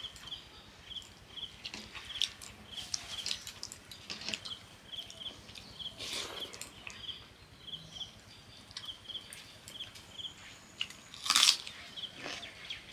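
Close eating sounds of wet, water-soaked rice (panta bhat) squeezed and mixed by hand, then chewed with small wet smacks, with one loud crunch about eleven seconds in. A faint high double chirp repeats about twice a second in the background.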